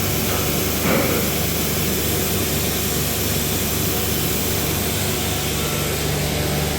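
Steady machine drone of CNC router equipment running, with a low even hum beneath it.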